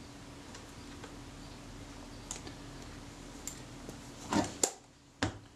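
Small clicks and taps of fingers handling a Kodak Retina IIIS camera body, with a few sharper, louder clicks near the end, over a faint steady hum.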